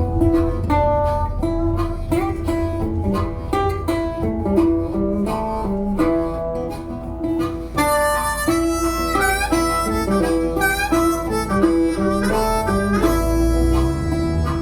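Background music: plucked acoustic guitar with a steady beat, joined by a harmonica about halfway through.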